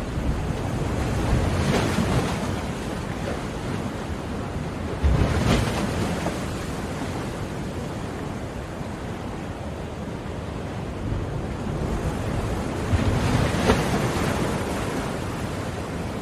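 Ocean waves breaking on a shore: a steady wash of surf with three louder swells, around two seconds in, at about five seconds and near fourteen seconds.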